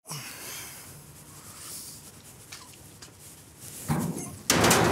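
A heavy tarp rustling as it is swung up over a dump trailer's side, then a sudden loud flapping rustle near the end as it lands.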